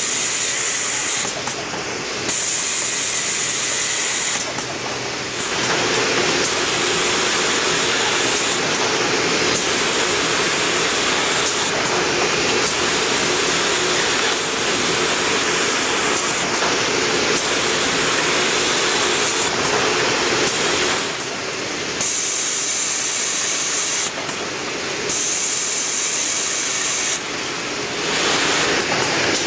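Fidia Vampa Trevi shopping-bag making machine running: a steady, hissing mechanical noise whose level and tone shift abruptly several times.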